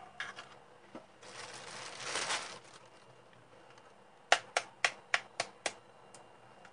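An egg tapped six times in quick succession against the rim of a bowl to crack its shell, after a soft rustle of handling.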